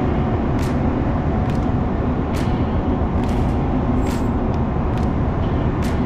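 Steady low rumble and hiss of a ship's deck, with short sharp clicks about once a second.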